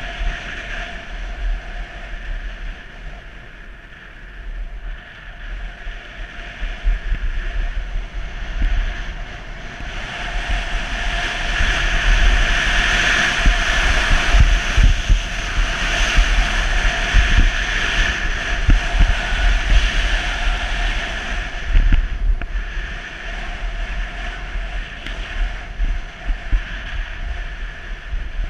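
Wind rushing and buffeting over a helmet-mounted camera's microphone during a fast ski descent, with the skis hissing over groomed snow. It grows louder through the middle and drops suddenly about three-quarters of the way through.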